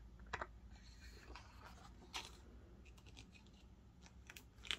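Faint rustling and soft scraping of paper pages being handled and turned in a large photobook, in a few short strokes, the clearest near the end.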